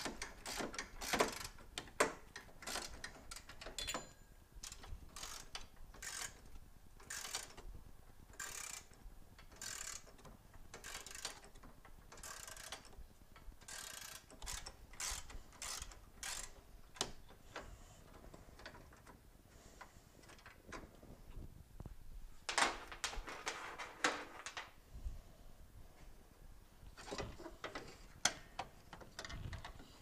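Socket ratchet clicking in short runs as the 10 mm bolts holding a Toyota Corolla hood latch are backed out. A longer scraping rattle comes about three-quarters of the way through.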